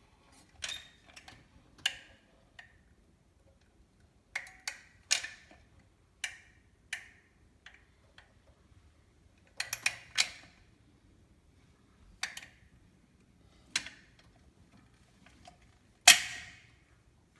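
Irregular sharp knocks and clicks of the stainless steel sink and its fittings being handled and set in place during installation, some with a short ringing tail; the loudest knock comes near the end.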